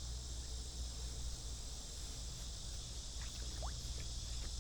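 Steady, high-pitched chorus of summer insects droning, with a low steady hum underneath and a few faint ticks near the end.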